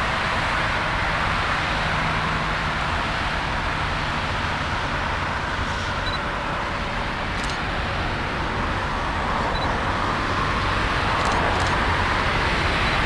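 Cars' tyres hissing on a wet road in a steady wash of traffic noise, with a freight train approaching on the nearby line, getting a little louder near the end.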